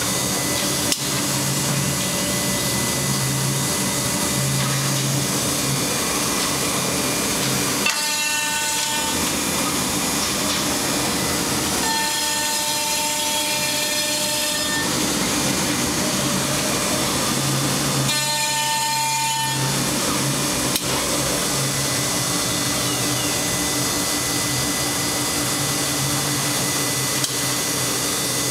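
HOMAG CNC working center running: a steady loud machining noise, with a steady high whine coming through three times, each for a second or two.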